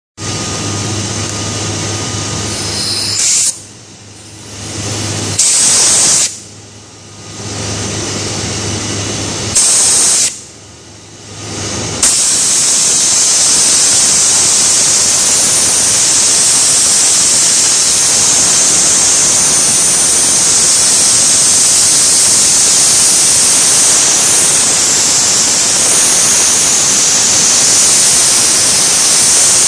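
Handmade brass two-cylinder reciprocating model engine run on compressed air: the air starts and stops a few times with short loud blasts of hiss, then from about twelve seconds in a steady loud hiss of air through the engine as it keeps running.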